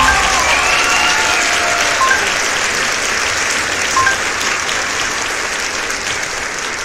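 Crowd applause with a few short whistles, fading slowly.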